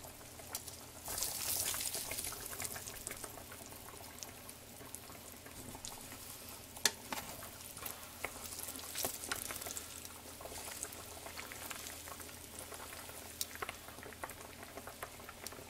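Breaded pork cutlet shallow-frying in hot oil in a skillet, a steady sizzle full of small crackles, louder for a moment about a second in just after the cutlet is flipped. A few sharp clicks stand out, the clearest about seven seconds in.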